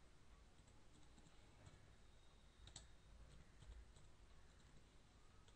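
Faint, scattered computer keyboard key clicks over near silence as text is typed, with one louder click almost three seconds in.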